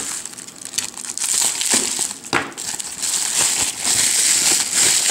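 Plastic bubble wrap crinkling and crackling as it is pulled off a puzzle by hand, growing louder about three seconds in.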